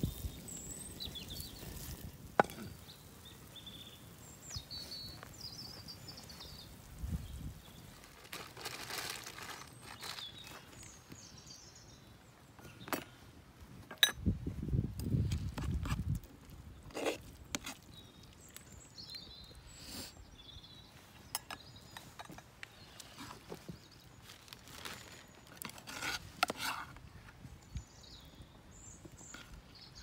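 Outdoor ambience with scattered sharp clicks and knocks, short high chirps now and then, and two brief low rumbles, the longer one about halfway through.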